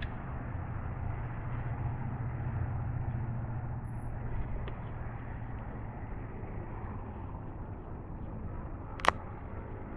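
Steady outdoor background noise with a low rumble underneath, and one sharp click about nine seconds in.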